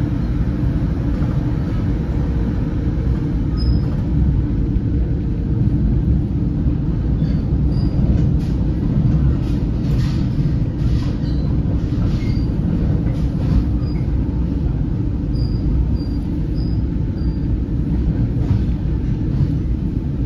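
Inside an NJ Transit Comet V passenger coach at speed: a steady low rumble of the wheels running on the rails, with light clicks and brief faint squeaks from the wheels and car body.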